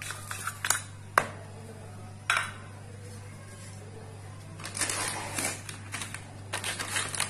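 Kitchen handling noise: a few sharp clicks and a knock of a spoon and small plastic containers against a plastic mixing bowl, then two bouts of scraping as a spoon works through dry powder. A steady low hum runs underneath.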